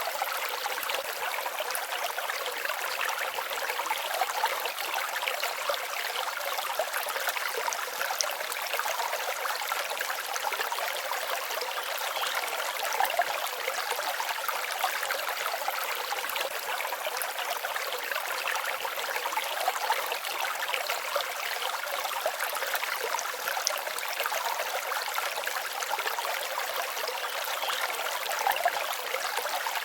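Forest stream babbling steadily, an even rush of water with small flickering splashes and no low rumble.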